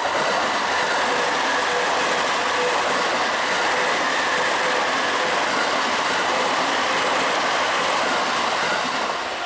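A train passing close by: a loud, steady rush of wheel and rail noise that comes in suddenly and holds for about nine seconds before fading near the end.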